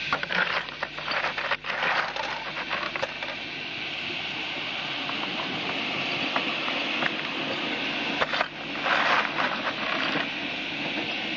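5-inch gauge live-steam model of an LNER B1 locomotive running on the track, giving a steady mechanical rattle and hiss. There are two louder spells of rapid clicking and hissing, one in the first few seconds and one around nine seconds in.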